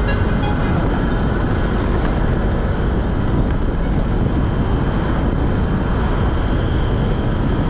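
Motorcycle riding on the road: steady engine and road noise, with wind rumbling on the microphone.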